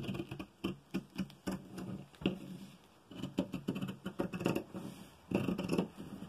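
Scissors snipping through fabric and its paper pattern in a quick, irregular series of short cuts, with the cloth rustling against the table between snips.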